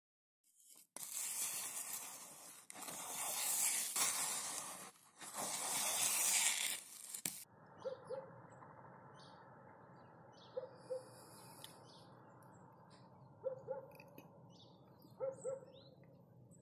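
Loud rushing noise for about six seconds that cuts off abruptly. Then a quiet steady outdoor background in which an animal gives short double calls about every three seconds, with faint high bird chirps.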